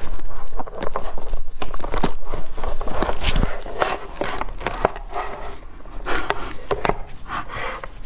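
Durian husk being pried apart by hand: the spiky shell cracks and tears along its seams in a run of sharp snaps and crackles, loudest in the first few seconds and then softer as the halves come apart.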